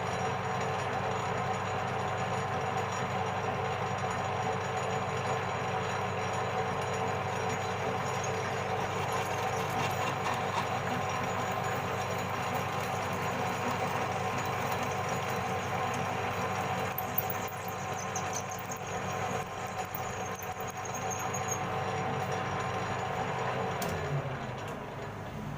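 Metal lathe running steadily, set up for milling: a continuous mechanical whir with a few steady tones over a wide noise, and one brief click about two-thirds of the way through.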